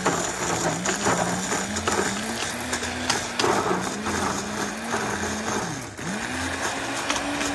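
Electric immersion blender running in a glass jug of thick persimmon pulp and cocoa powder, its motor pitch wavering as the blade works through the mix. The motor slows briefly about six seconds in, then picks back up.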